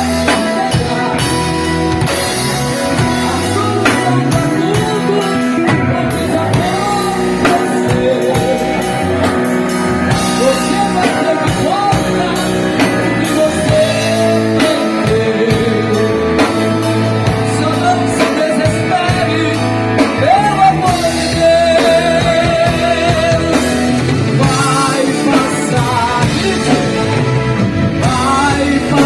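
Live band playing a rock-style song with drum kit, electric guitars, bass and keyboard, under a lead melody that wavers in pitch.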